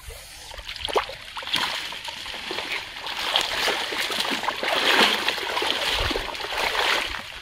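Shallow water splashing and sloshing irregularly as a person wades through it among floating water hyacinth.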